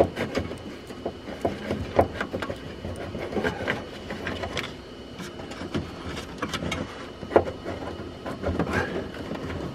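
Hands working a wire harness in corrugated plastic loom and plastic trim behind a car's front bumper: irregular clicks, taps and rubbing of cable and plastic.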